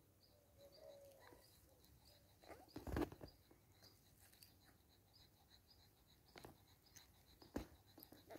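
Near silence. One brief faint puppy whine comes about a second in, and a soft rustle or thump comes about three seconds in. Faint high chirps repeat a few times a second throughout.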